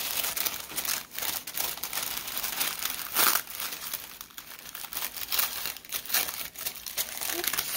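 Tissue paper crinkling and tearing as hands pull the sealed wrapping open, a dense run of crackles with a louder rip about three seconds in.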